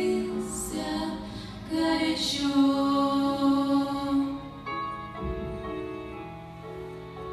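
Choir singing a song in long held notes, giving way about four seconds in to a quieter passage of steady instrumental tones.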